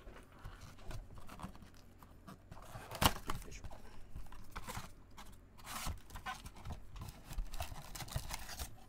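Cardboard trading-card box being opened by gloved hands: flaps scraping and rustling, with one sharp knock about three seconds in, then rustling as the foil packs are pulled out.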